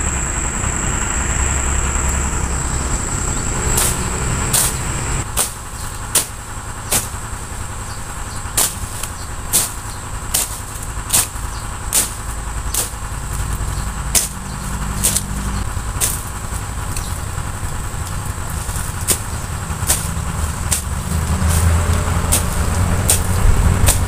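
Weeds and grass stems being cut with a small hand blade: a run of crisp snips, a little faster than one a second, starting a few seconds in. Under them runs a steady low motor rumble and a constant high-pitched whine.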